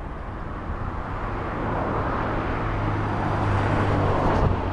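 Class 47 diesel locomotive's Sulzer twelve-cylinder engine working under full power as it approaches hauling a steel train, a low steady drone that grows steadily louder and is loudest near the end.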